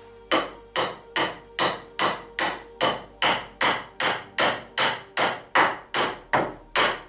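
Hammer driving nails into a wooden timber frame: about seventeen steady, evenly spaced blows, roughly two and a half a second, each ringing briefly.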